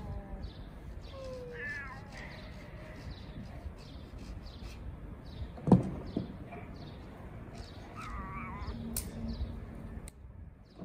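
Street cats meowing back and forth: a long falling meow trailing off at the start, short calls about two seconds in, and a wavering meow about eight seconds in. A single sharp knock about halfway through is the loudest sound.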